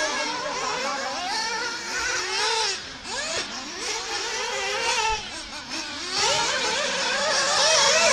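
Radio-controlled off-road buggies running laps. Their small high-revving motors climb and drop in pitch as they accelerate and brake through the corners, with the sound easing off briefly twice.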